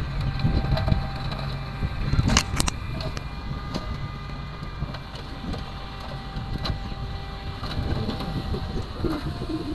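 Heavy earthmoving machinery running, a diesel engine with a steady low drone and faint whining tones, and a few sharp crunching knocks about two and a half seconds in, like soil and rock landing or a steel bucket striking.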